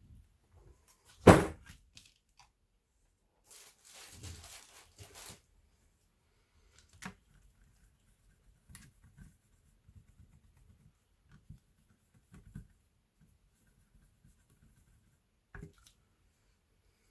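Laptop parts being handled: a sharp knock about a second in, a rustling, tearing-like scrape from about three and a half to five seconds, then scattered small clicks and taps.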